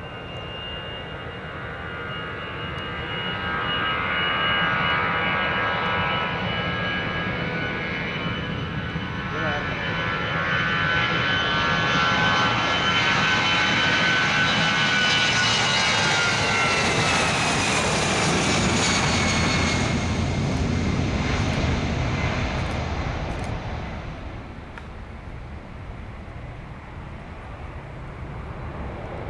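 Airbus A320-214's twin CFM56 turbofan engines at takeoff power as the jet rolls down the runway and climbs away: a steady whine over a low rumble. The sound grows louder as the jet passes, and the whine drops in pitch as it goes by, then fades as the aircraft climbs out.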